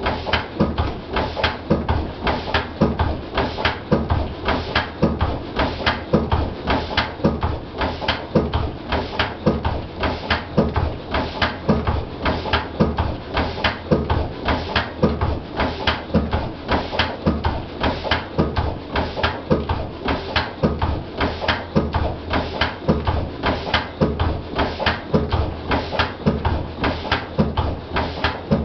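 Lister CS stationary diesel engine running steadily: an even, repeating knock with each firing stroke.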